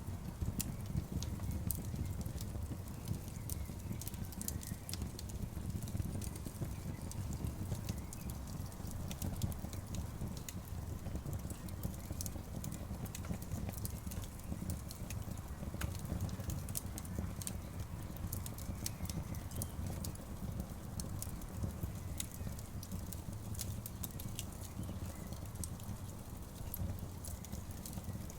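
Campfire burning, the wood crackling with many irregular sharp pops over a steady low rumble.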